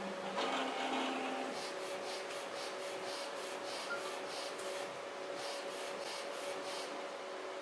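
Small A4 UV flatbed printer printing: its print-head carriage working over the bed in short strokes repeating about three times a second, over a steady two-note mechanical hum, a little louder during the first second and a half.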